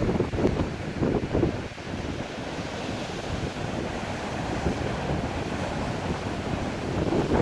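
Strong wind on the microphone over breaking surf, a steady rumbling noise that eases slightly about two seconds in.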